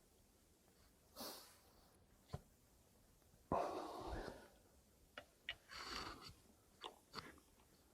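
Close handling sounds of fishing tackle: a few sharp clicks among soft rustles, with breath-like exhales close to the microphone, the longest about three and a half seconds in.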